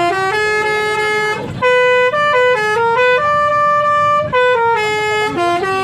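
Bus 'telolet' musical air horn playing a tune: short horn notes stepping up and down in pitch, with one longer held note in the middle.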